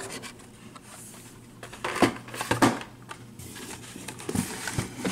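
Carded Hot Wheels cars in plastic blister packs being handled and slid out of a cardboard shipping case: plastic crinkling and card scraping on cardboard in a few short rustles, the loudest about two seconds in.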